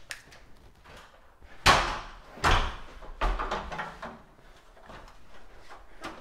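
Three knocks and thumps a little under a second apart, the first the loudest, among fainter handling noises.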